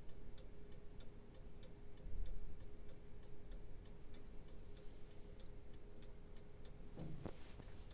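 Quarter-chiming mechanical clock movement ticking steadily with an even beat, its escapement running again after being revived. A low bump about two seconds in.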